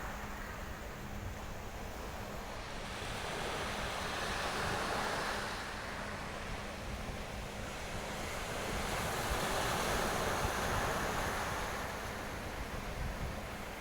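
Black Sea surf washing onto the beach, the sound swelling and ebbing twice as waves come in, with wind buffeting the microphone.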